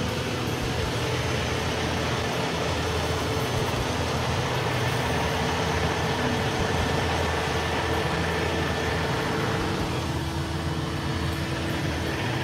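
Steady vehicle noise: engines running with a continuous low hum and road noise, with no distinct events.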